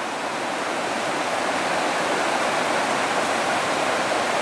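River water rushing over rapids, a steady noise that grows slightly louder as it goes.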